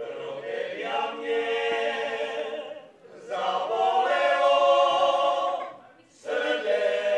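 A group of singers sings a folk song without accompaniment, in three long held phrases with short breaks for breath.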